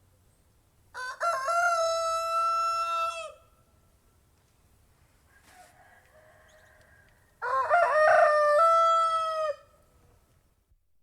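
Rooster crowing twice, each crow lasting about two seconds, with a fainter call in between.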